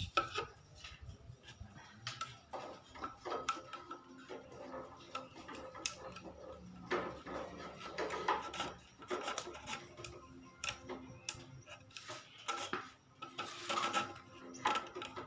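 Irregular light clicks, taps and rattles as thin cage bars are handled and fitted into a wooden bird-cage frame, with some rubbing of rods against the wood.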